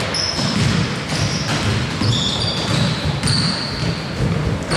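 Basketball play on a court: the ball thudding as it is dribbled, and sneakers giving several short high squeaks on the floor.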